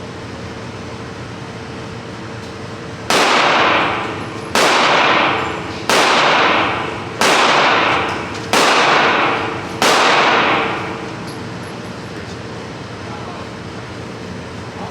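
AK-pattern rifle fired six times as single shots, about one every 1.3 seconds, each crack followed by about a second of ringing echo.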